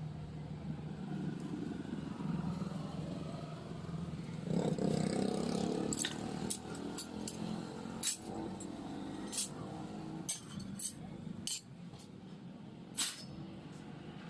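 A series of sharp metal clinks and taps, irregular, over a low steady hum; one near the end rings briefly.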